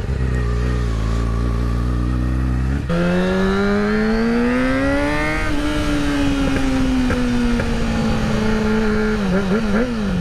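2012 Kawasaki ZX-6R's inline-four engine running low and steady for about three seconds, then its note jumps higher as the bike pulls away, rising for a couple of seconds and easing down slowly as it rides on. A few quick dips and rises in pitch come near the end.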